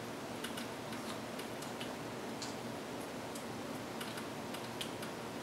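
Soft, small clicks, irregularly spaced about every half second to a second, over a steady low hiss.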